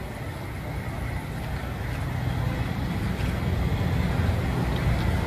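Semi-truck's diesel engine idling, a low rumble that grows louder.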